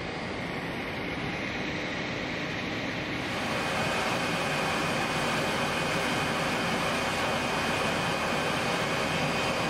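Steady rushing noise of moving air around a parked Boeing 737's nose and avionics bay, growing louder about three seconds in.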